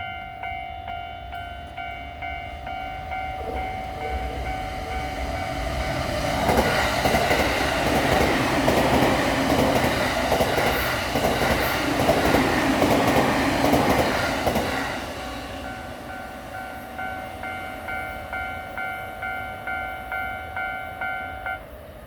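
Japanese level-crossing alarm bell ringing in a steady repeating ding-ding while an electric train passes through the middle, its wheels clattering rhythmically over the rail joints and drowning out the bell. The bell stops near the end.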